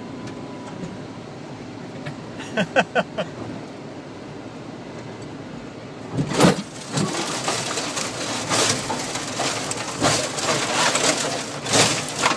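Vehicle noise heard from inside the cab while driving on a sandy dirt wash, with a short run of four quick pitched sounds a few seconds in. About six seconds in it turns much louder and rougher, full of irregular knocks, rattles and buffeting.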